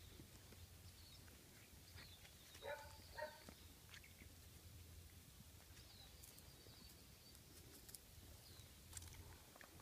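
Goldendoodle puppies playing, mostly near silence, with two short faint yips close together about three seconds in and a few faint high chirps.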